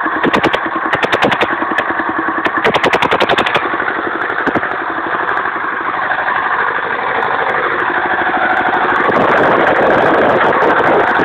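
Lister SR1 single-cylinder diesel engine running just after a hand-crank start, driving its generator. For the first three or four seconds it runs with a sharp, rapid clatter, then settles into a smoother, steady run.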